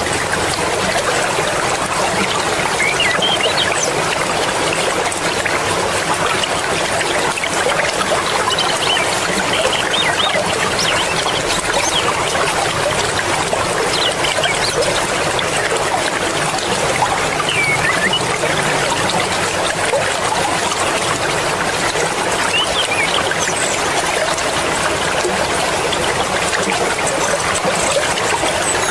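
Swift mountain river water rushing and babbling in a steady, unbroken wash of noise.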